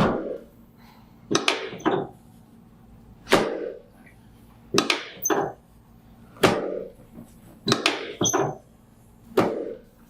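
Chiropractic drop table sections dropping with sharp knocks under the chiropractor's thrusts during drop-piece adjustments of the SI joints and spine. About ten knocks, roughly one every second, some coming in quick pairs.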